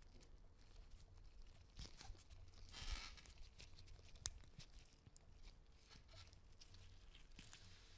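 Faint handling sounds of gloved fingers working a small metal jump ring and fine chain: soft rustles and tiny clicks, with a brief scratchy rustle about three seconds in and a sharp little click a second later.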